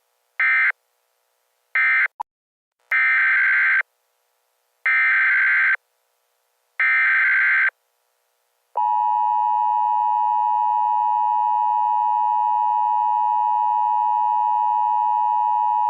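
Emergency Alert System data tones: two short data bursts, then three screeching SAME header bursts of about a second each, two seconds apart. About nine seconds in, the steady EAS attention tone starts and holds, announcing a new alert.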